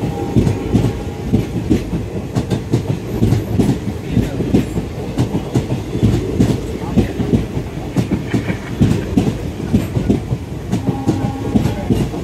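Indian Railways express coaches rolling past a platform, their wheels clacking rapidly over the rail joints over a steady low rumble.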